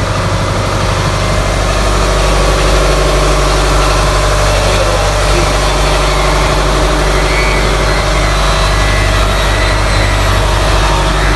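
An engine aboard a pinisi boat running steadily: a low, even drone that grows a little louder about two seconds in.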